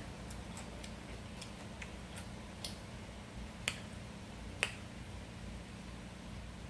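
Close-up eating sounds: chewing with scattered small mouth clicks, and two sharper clicks a little over halfway through as the metal fork picks food off the plate.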